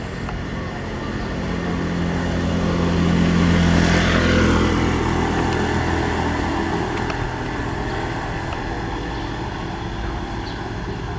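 A motor vehicle passing by: its engine grows louder to a peak about four seconds in, its pitch drops as it goes past, and then it fades away.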